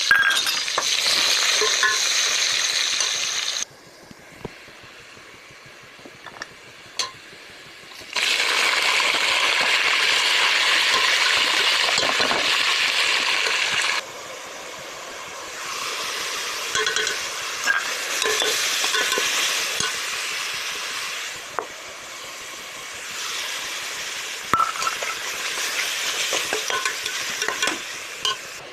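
Food sizzling as it fries in a pot, with a spoon stirring and clinking now and then against the metal. The sizzle cuts off abruptly after about three and a half seconds, comes back just as suddenly about eight seconds in, and drops to a lower level about fourteen seconds in.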